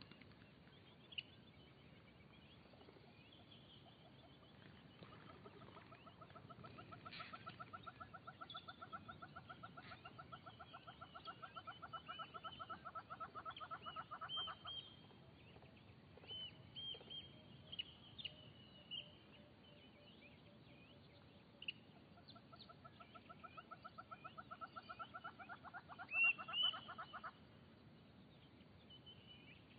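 Birds calling: a long, rapid pulsing trill heard twice, the first about ten seconds long and the second about five and loudest at its end, with short high chirps in between.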